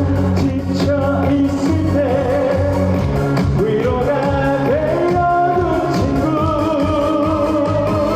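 A singer performing a trot song live over a backing track with a steady beat, holding long notes with vibrato.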